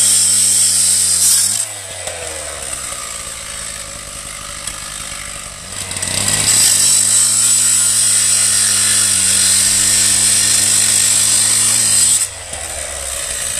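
Husqvarna K760 two-stroke petrol cut-off saw cutting through a steel axle tube at full throttle, its engine note steady under a loud high grinding hiss. Just under two seconds in it eases back to a lower, quieter running note for about four seconds, then cuts hard again until it drops back near the end.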